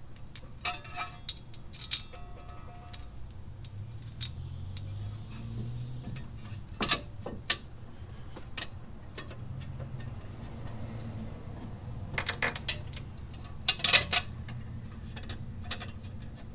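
Scattered metallic clinks, taps and short rings as a wheel hub and a new wheel stud are handled and fitted together by hand, with a few sharper clicks in the second half.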